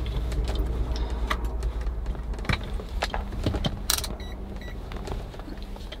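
Small clicks and taps of a bulb and plastic wiring connectors being handled, over a steady low rumble. Two short electronic beeps sound a little over four seconds in.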